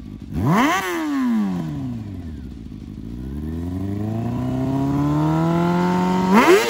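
Honda CBR600 F4i's inline-four engine revved by hand on the throttle. A quick blip just under a second in sinks slowly back. The revs then climb slowly and hold, and a sharp blip comes near the end.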